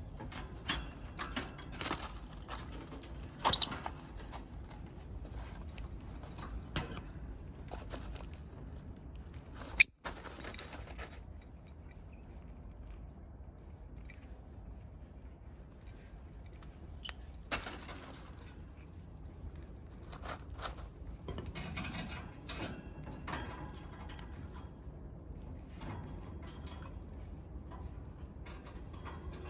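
Pet peach-faced lovebirds moving about: scattered small squeaks, chirps and clicks, with one sharp, loud click about ten seconds in.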